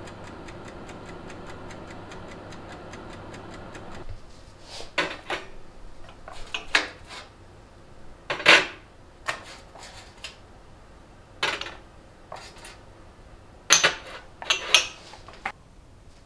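A steady hum with fast, even ticking, about four ticks a second, like a clock or kitchen timer, which stops about four seconds in. Then comes a series of sharp, irregular clinks and knocks of ceramic ramekins being set down on a wire cooling rack.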